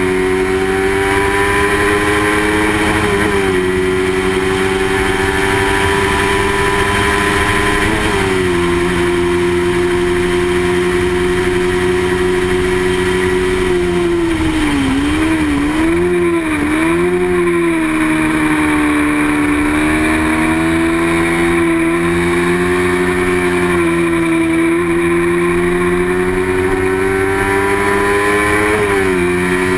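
Small-displacement racing motorcycle engine held at high revs. Its pitch climbs slowly and drops briefly with upshifts about three and eight seconds in and again near the end. Around the middle it falls and bobs up and down several times through braking and downshifts before climbing again.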